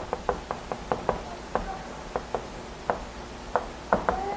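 Chalk tapping and scraping on a blackboard as characters are written stroke by stroke: a run of short, sharp, irregular taps, about three or four a second.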